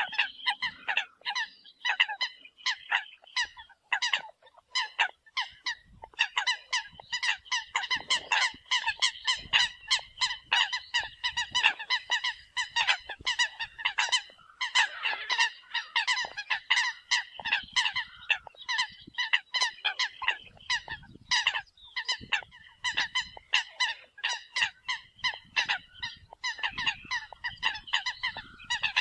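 Eurasian coot calling: an unbroken run of short, sharp, nasal honking calls, several a second.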